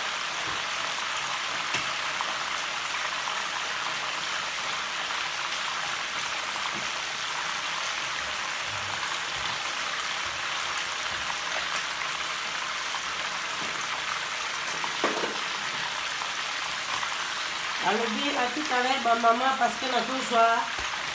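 Pieces of meat frying in oil in a frying pan: a steady sizzle with light crackling. About three seconds before the end a person's voice comes in over it.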